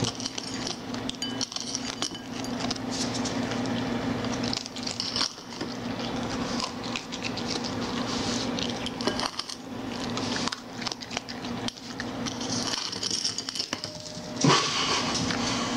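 A raccoon's claws clicking and scratching on a hard kitchen floor and knocking at a plastic bowl close to the microphone: light, irregular clattering over a steady low hum. A louder sudden knock comes near the end.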